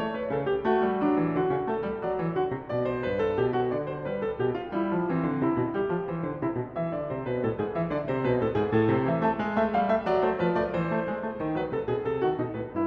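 Background music played on piano, a steady flow of many quick notes.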